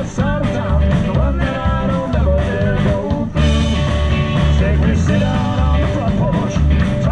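Live rock and roll band playing with electric and acoustic guitars, upright bass and drums, over a steady beat.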